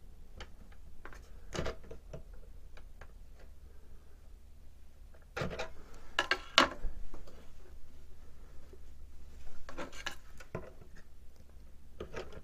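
Handling noise from an LCD control panel on 3D-printed PLA brackets being moved and fitted against a 3D printer's top frame rail. Scattered light clicks and rubs, with a louder flurry of clicks and knocks between about five and seven seconds in, over a steady low hum.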